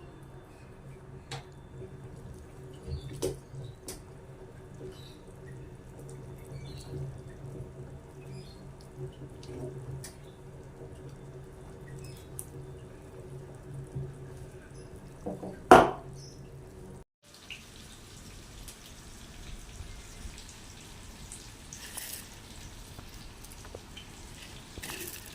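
Kitchen sounds: scattered small clicks and clinks over a steady low hum, with one loud clatter about 16 seconds in. After an abrupt cut about 17 seconds in, a hissing background with a few soft swishes.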